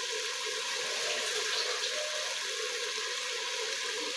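Chicken and masala frying in oil in an aluminium pot, a steady sizzle. The masala is fully fried and has begun to release its oil.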